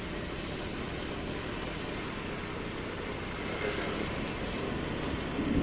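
Steady rush of wind and road noise from a moving vehicle, growing a little louder from about three and a half seconds in.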